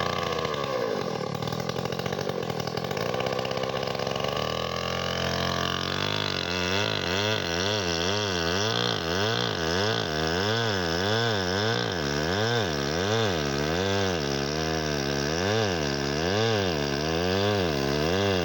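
Chainsaw running. Its pitch climbs over the first few seconds, then rises and falls steadily about once a second as it works through the wood.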